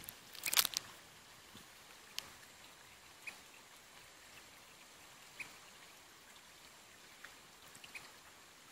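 Quiet streamside ambience: a quick cluster of sharp clicks about half a second in, then scattered faint ticks and short high chirps over a soft hiss.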